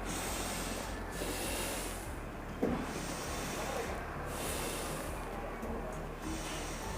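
A person breathing slowly in and out through the nose, in hissing breaths that swell and fade every second or two, during a seated cat-cow stretch. There is a soft bump about two and a half seconds in, over a steady low hum.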